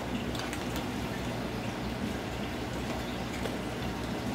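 Steady watery trickle and hum from an aquarium's filter, with a few faint clicks as the nested cookset is handled in its bag.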